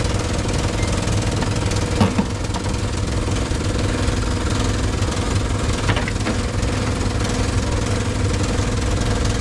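Fishing boat's engine running steadily: an even, rapid low chugging with a constant hum. A short knock comes about two seconds in.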